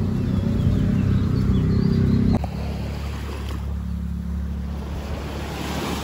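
A loud low rumble cuts off abruptly about two seconds in. It gives way to small waves washing onto a sandy shore over wind noise on the microphone, with a wave breaking and washing up near the end.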